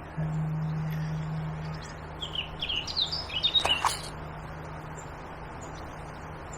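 A small bird giving a quick run of high chirps a couple of seconds in, over a steady rush of water from the weir. A low steady hum is louder for the first second and a half.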